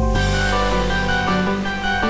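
Background music: a melody of quick, changing notes over a steady low bass.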